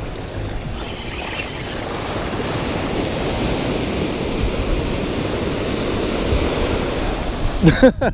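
Ocean surf breaking and washing up a sandy beach: a steady rush of foam and water, with wind on the microphone. A few brief loud bumps come near the end.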